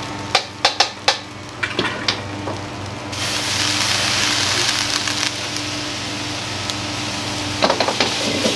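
A few sharp metal clinks, then, about three seconds in, a loud sizzle starts suddenly as food goes into a hot oiled wok, and it keeps frying steadily. A steady low hum runs underneath.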